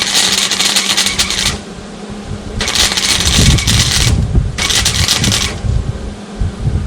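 Hobart 140 MIG welder arc crackling as it runs short weld beads, in three separate stretches: the first stops about a second and a half in, then it starts again briefly twice. A steady low hum runs underneath.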